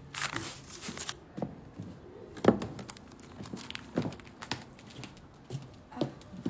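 Torn, crumpled sheets of paper rustling and crinkling as a small dog moves about on them, in scattered short crackles with a sharper one about two and a half seconds in.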